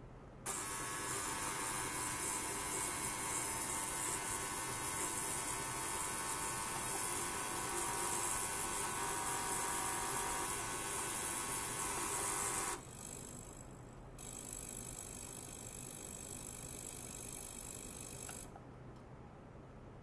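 Benchtop ultrasonic cleaner running: a loud hiss with several steady tones starts abruptly about half a second in and cuts off after about twelve seconds. After a short pause comes a quieter, higher hiss for about four seconds.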